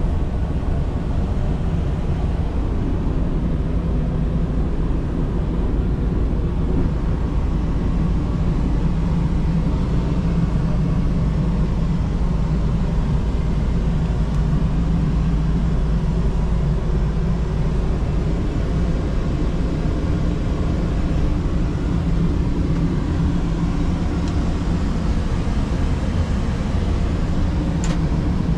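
Steady in-flight cabin noise of an Airbus A330-200, heard inside the lavatory: an even, low rumble of engines and airflow with a steady low hum.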